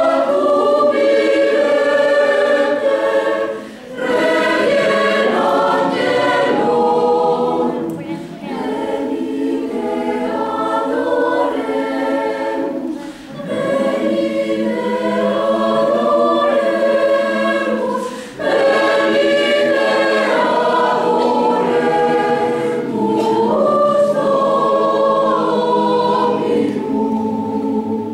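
Mixed choir of men's and women's voices singing sustained chords in a stone church, in phrases of a few seconds with short breaks between them.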